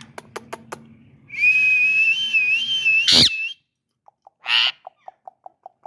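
Ringneck parrot whistling a wavering tone for about two seconds that ends in a sharp squawk, followed by a short screech and a quick run of short clicking notes. A few sharp clicks come just before the whistle.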